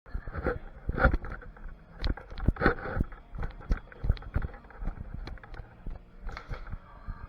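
Irregular string of sharp knocks and clicks, several a second and uneven in loudness, consistent with airsoft gunfire and gear handling during a game.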